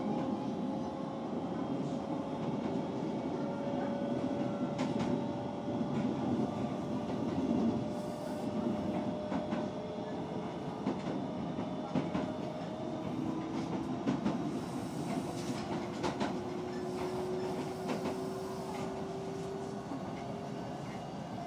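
Osaka Metro 66 series electric train running: a steady rumble of wheels on rail under a motor whine that rises slowly in pitch, with scattered clicks of wheels over rail joints.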